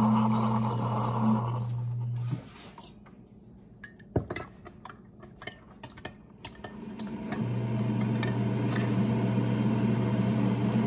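A coffee maker's steady electric hum cuts off about two seconds in. A metal spoon then clinks repeatedly against a glass mug of coffee as it is stirred, and a steady machine hum starts up again about seven seconds in.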